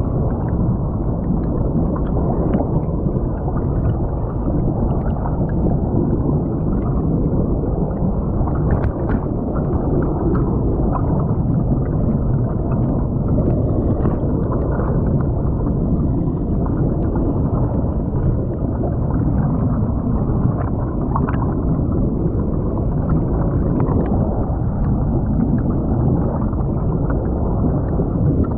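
Creek water rushing past a camera submerged in the current, heard muffled underwater as a steady dull rumble with scattered faint clicks.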